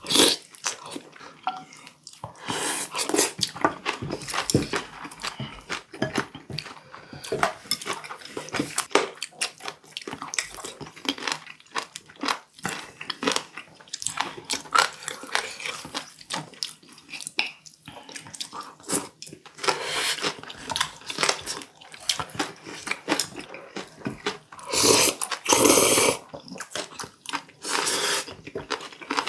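Close-up eating sounds of warty sea squirt: crunchy biting and chewing with wet mouth noises, many quick crackles one after another, louder for a moment near the end.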